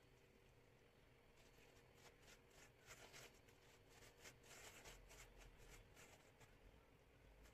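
Very faint, irregular soft swishes and dabs of a silicone pastry brush spreading butter and parsley sauce over a bazlama flatbread, starting about a second and a half in.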